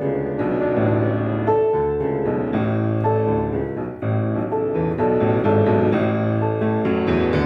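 Piano playing a piece: a melody over held bass notes and chords, with a brief lull about four seconds in before the next phrase.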